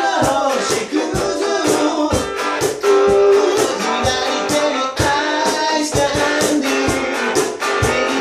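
Guitars strummed in a steady, even rhythm, playing a song.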